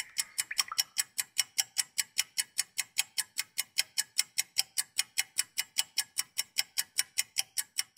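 Fast, even clock ticking at about five ticks a second, like a stopwatch or countdown timer.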